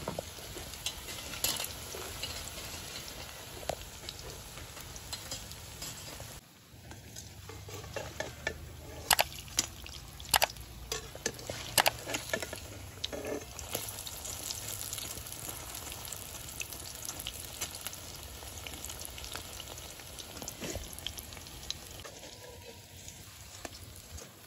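Banana flower fritters in besan batter deep-frying in hot oil in a kadai, a steady sizzle. A slotted metal ladle stirs them, with several sharp clicks and knocks against the pan near the middle.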